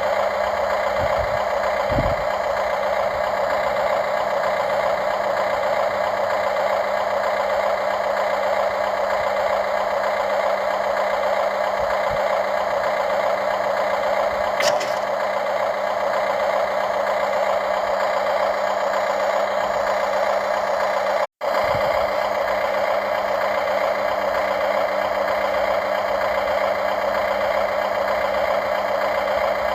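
Radio-controlled model excavator running: a steady mechanical whine with a couple of light clicks. It cuts out for an instant about two-thirds of the way in.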